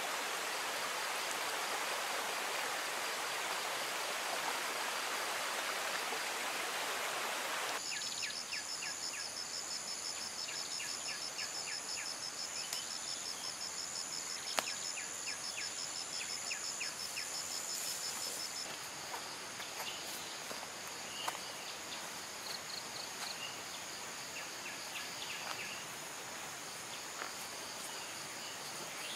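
Shallow stream rushing over flat rock for about the first eight seconds, cutting off abruptly. After that comes forest insect calls: steady high-pitched buzzing, a fast pulsing trill that stops a little past halfway, and short chirps scattered throughout.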